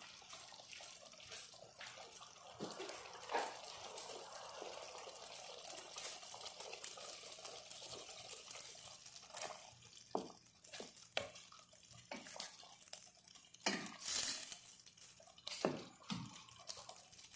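Water poured from a plastic pitcher into a pot of chicken and bean stew, a steady splashing pour that stops about halfway through. Then a wooden spoon stirs the stew, knocking against the stainless steel pot several times, once loudly near the end.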